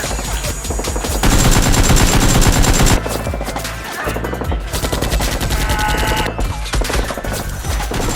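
Rapid machine-gun-style gunfire, shots in quick succession, over background music, loudest between about one and three seconds in.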